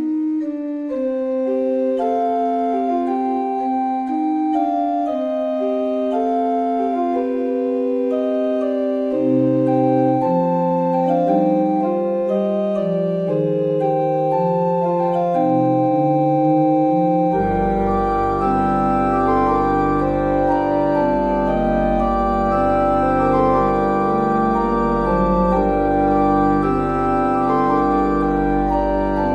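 Background music: a keyboard melody of held notes, with a deep bass layer joining about halfway through.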